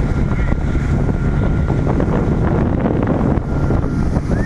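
Small boat's engine running steadily under way, with wind buffeting the microphone.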